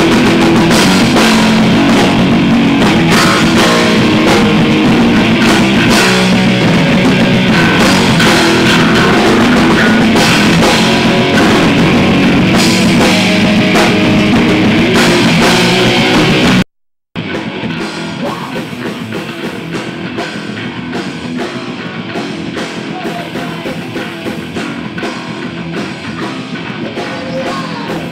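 Live heavy metal band playing loud: distorted electric guitars, bass and a drum kit. A little past halfway the sound cuts out for a split second and comes back quieter and thinner.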